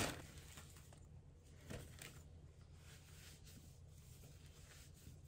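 Near silence: low room hum with a few faint rustles about two seconds in.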